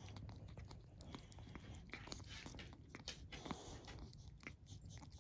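Kitten eating from a small bowl: faint, irregular chewing and crunching clicks.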